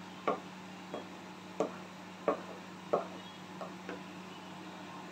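Wooden spoon knocking against the side of a cooking pot as thick haleem is stirred and beaten, a soft knock about every two-thirds of a second, fainter after about three seconds. A steady low hum runs underneath.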